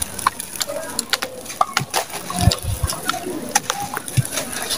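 Dry sand-cement lumps crushed and crumbled by hand: a run of gritty crunches and small sharp crackles as the lumps break and the powder pours.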